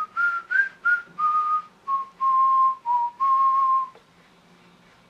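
A person whistling a short tune of about nine notes, starting near 1.4 kHz and drifting lower, the later notes held longer; the whistling stops about four seconds in.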